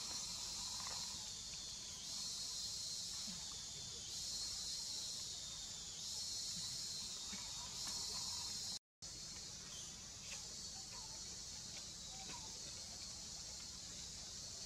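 Steady high-pitched insect chorus of forest crickets or cicadas, breaking off for an instant about nine seconds in.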